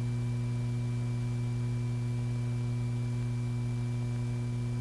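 Steady low electrical hum with a few fainter steady higher tones above it, over a light even hiss: the background hum of an old film soundtrack.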